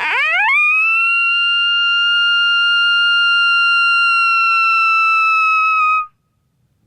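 Coyote howl blown on a Zepp's Badlands Gunner predator call: one long howl that sweeps up quickly at the start, holds a steady pitch for about five seconds, then dips slightly and cuts off.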